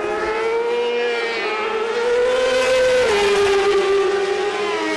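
Sport-bike racing engines at high revs. The pitch climbs slowly, is loudest just before a sharp drop about three seconds in, and then carries on lower.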